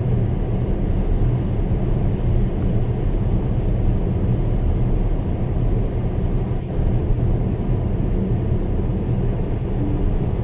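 Tesla Model S electric car cruising at about 100 km/h: a steady low rumble of tyre and road noise heard inside the cabin, with no engine sound.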